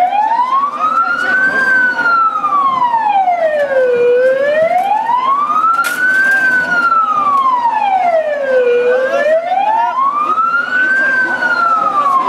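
Emergency vehicle siren wailing: a loud tone that slowly rises and falls, each sweep up and down taking about five seconds, climbing to its highest pitch three times.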